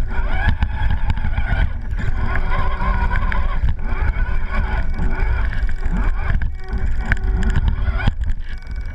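Electric RC crawler truck driving through snow: a steady motor-and-gear whine over a heavy, uneven rumble, with many short knocks as the truck and its on-board camera jolt over the snow.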